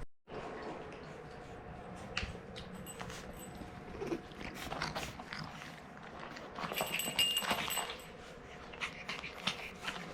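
French bulldog puppy making short, scattered little noises, busiest and loudest about seven to eight seconds in.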